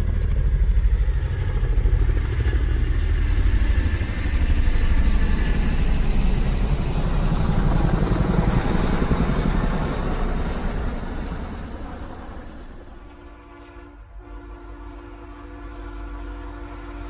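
A train passing with a loud, low rumble that fades away after about ten seconds. A steady chord of held tones, like a train horn, starts quietly near the end.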